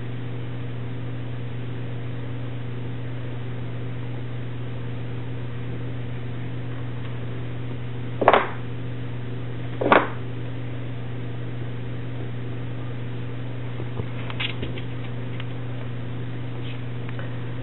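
A steady low mechanical hum, with two short, sudden louder noises about eight and ten seconds in.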